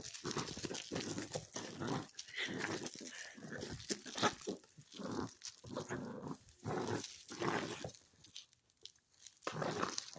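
A puppy growling in rough play, in quick irregular bursts, with a short lull about eight seconds in.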